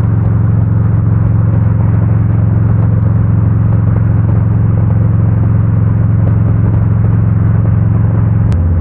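Harley-Davidson Road King's V-twin engine running at a steady cruise, a constant low drone mixed with wind and road noise. Near the end there is a short click and the engine's drone shifts in pitch.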